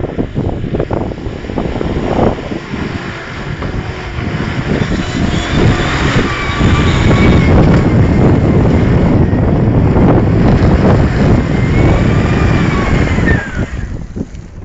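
Range Rover's 4.4-litre V8 working hard as the 4x4 drives through deep mud. The engine builds to its loudest from about a third of the way in, with a whine that rises and falls over it, then dies down sharply about a second before the end.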